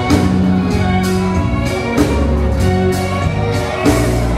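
Live sertanejo band playing an instrumental passage: button accordion chords over acoustic guitar, with a drum kit keeping a steady beat of about two hits a second.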